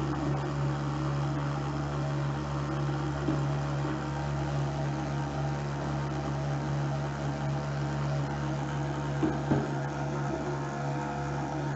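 Small electric water pump running steadily with an even hum, drawing salt water through a cyclonic separator into a pop bottle. A couple of light knocks come about nine seconds in.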